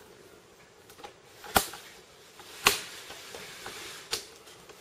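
Handling noise: a few sharp knocks and clicks, roughly a second apart, the loudest about one and a half seconds in, as equipment is shifted about on a desk.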